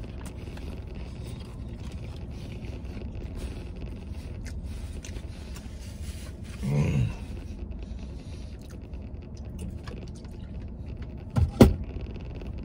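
Eating sounds in a truck cab: a plastic fork scraping animal-style fries in a paper tray, over a low steady rumble. A short grunt comes about seven seconds in, and a sharp knock, the loudest sound, near the end.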